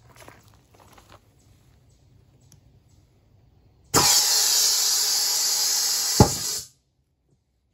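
Compressed air hissing steadily from an air line as it inflates a rubber balloon filled with paint and thinner. About two seconds after the hiss starts, the balloon bursts with one sharp pop, and the air hiss cuts off half a second later.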